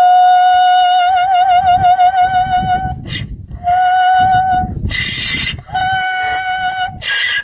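A high singing voice holding long notes with vibrato: one long note of about three seconds, then two shorter ones. Short harsh breathy noises fill the gaps between the notes.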